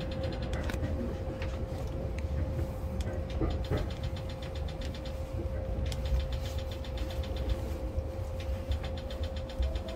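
Yamanote Line electric commuter train running between stations, heard on board: a steady low rumble of the wheels on the track with a steady tone held at one pitch, and spells of faint rapid ticking.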